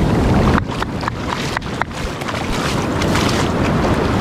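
Shallow surf washing up over wet sand, with wind buffeting the microphone. There are a few short crackles or clicks about one to two seconds in.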